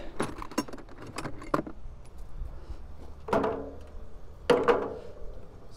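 Loose steel motorcycle hardware clinking and rattling as it is handled: quick light clicks at first, then two louder metallic clanks about three and four and a half seconds in.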